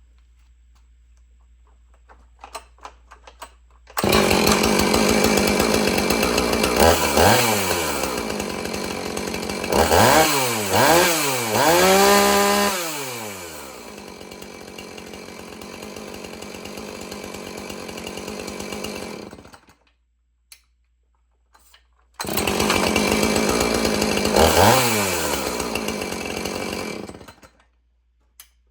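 Husqvarna 450 two-stroke chainsaw starting up suddenly, idling and revved several times in quick rising and falling blips, then cut off. After a short pause it is started again, revved once and shut off.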